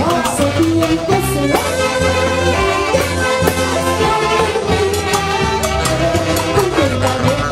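Live band music: a saxophone section plays the melody over a steady, repeating bass and percussion beat.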